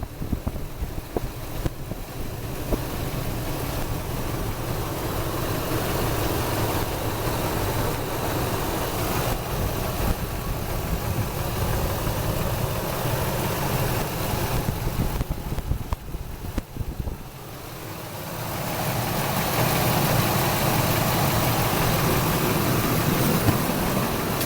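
Ford 5.4L V8 engine of a 2000 F-150 running steadily; it drops off briefly about two-thirds of the way through, then comes back louder.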